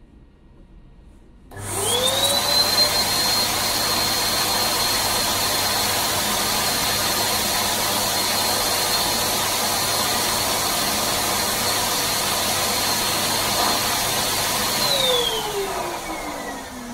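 Electric balloon pump starting up about a second and a half in, its whine rising to a steady pitch, then running steadily as it blows up a clear 12-inch crystal latex balloon. Near the end it is switched off and the motor winds down, its whine falling in pitch.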